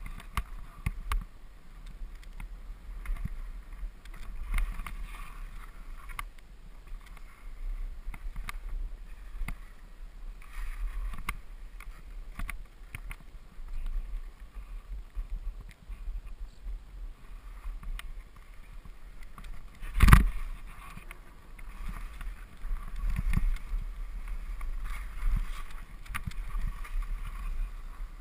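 Skis swishing and scraping through snow in repeated swells, turn after turn, over a low rumble. One sharp, loud knock comes about two-thirds of the way through.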